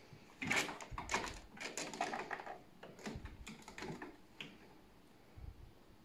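A cat scrabbling on a sisal cat tree and batting at a hanging pom-pom toy: a quick flurry of scratchy clicks and rustles in the first couple of seconds, then a few scattered taps.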